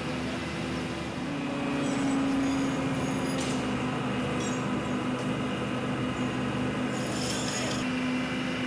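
Steady machinery hum with a held pitched drone, broken by a few short hisses about three and a half seconds in and again near the end.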